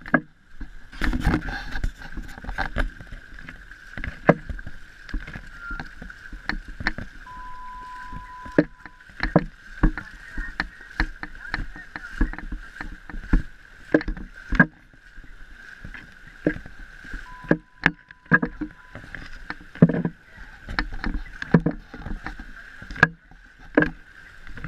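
Feet splashing through shallow seawater: many irregular splashes as several people wade, with a steady hiss of water and wind beneath.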